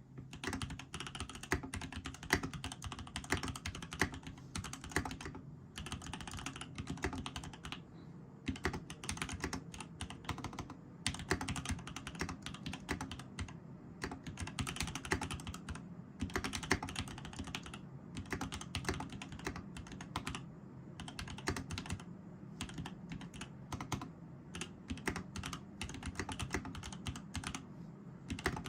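Steady typing on a custom mechanical keyboard, a TX EO-87 with lubed and filmed Tangerine linear switches on an FR4 plate. The keystrokes come fast and uneven, with a few short pauses.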